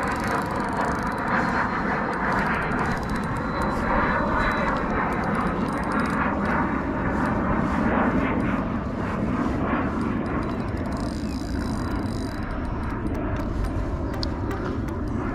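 A steady engine-like drone whose pitch drifts slowly up and down.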